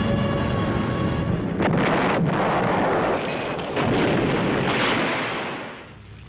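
Bomb explosions: a continuous rumbling roar with three louder blasts, about one and a half, three and a half and five seconds in, dying away near the end.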